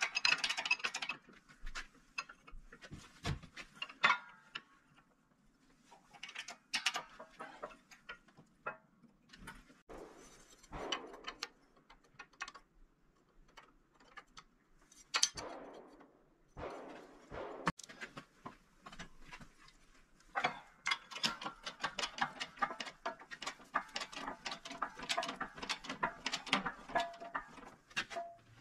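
Steel being handled at a hydraulic shop press fitted with a press-brake die while a flat steel strip is set and bent to 90 degrees: scattered metal clicks, knocks and a few short scrapes, then a busier run of rapid clicking and rattling over the last eight seconds or so.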